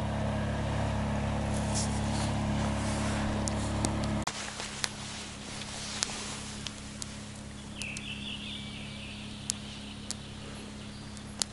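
A motor drones steadily, then drops suddenly to a much fainter hum about four seconds in. Over the faint hum come a few light clicks and a brief bird call.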